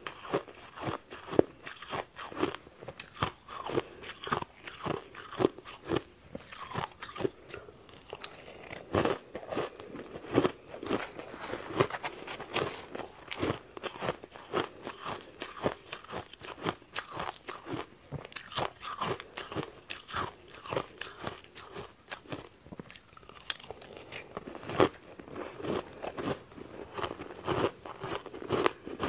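A person chewing and crunching ice close to the microphone, with rapid, irregular crunches going on without a break.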